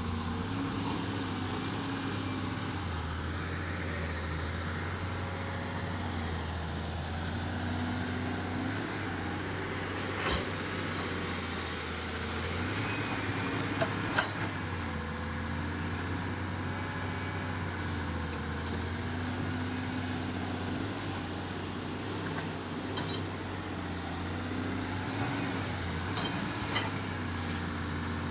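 An engine running steadily under a constant low hum, its pitch wavering slowly up and down, with a few faint clicks.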